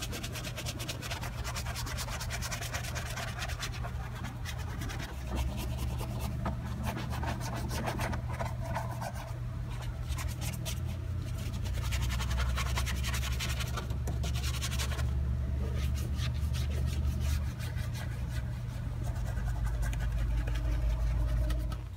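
Detail brush scrubbing foamed cleaner in a car's wheel well, its bristles rasping in quick strokes over the felt liner, plastic and suspension arm. A steady low hum runs underneath.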